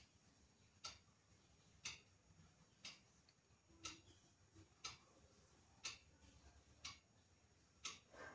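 Clock ticking faintly, one tick about every second.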